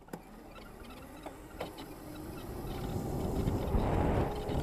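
Electric dirt bikes riding over grass: a low rumble of tyres and wind on the microphone that grows steadily louder as they pick up speed, with a steady motor hum coming in about halfway through. A few light knocks in the first two seconds.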